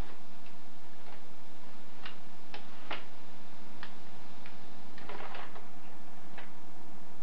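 Irregular light clicks and crinkles of a small plastic gift package being handled and pulled open by hand, with a denser flurry about five seconds in, over a steady faint hum.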